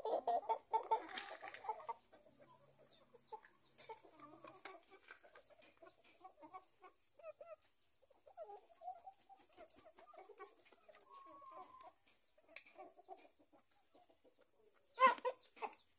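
Young Pama game chickens clucking, loudest in the first two seconds, then softer, scattered clucks with a few short high chirps. A short, loud burst of sound comes near the end.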